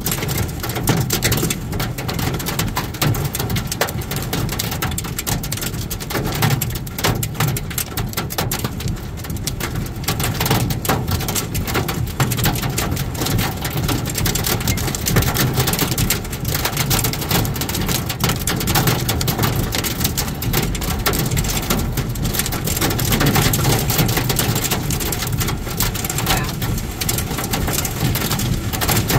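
Heavy rain pelting the car's windshield and roof, heard from inside the moving vehicle as a dense, steady patter of countless drops over low road noise.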